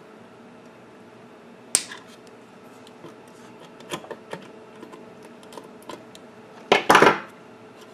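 Small clicks and taps of a wire and a soldering iron being worked at a valve socket in a metal amplifier chassis: one sharp click about two seconds in, a few light ticks around four seconds, and a louder short clatter near the end.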